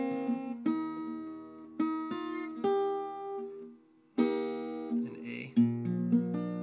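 Small-bodied acoustic guitar in drop D tuning, fingerpicked on a D chord: plucked treble notes over thumbed bass, with a brief gap about four seconds in. Stronger low bass notes come in near the end.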